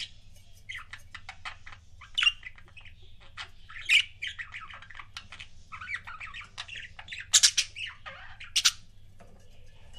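Pet budgerigars chattering: a busy run of quick chirps and clicks broken by several sharp, loud squawks, with the loudest cluster about three quarters of the way through. The calls thin out briefly near the end.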